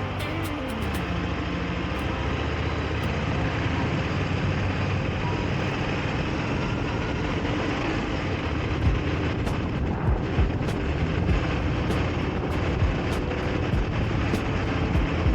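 Harley-Davidson V-Rod Night Rod Special's V-twin engine running under way; its note drops in the first second, then holds steady. Wind rushes over the microphone throughout, with low buffeting thumps in the second half.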